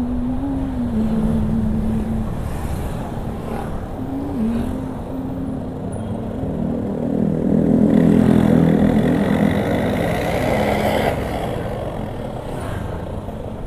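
Motorcycle engine running on the move, with steady wind and road noise. The engine note swells louder around the middle and then settles back.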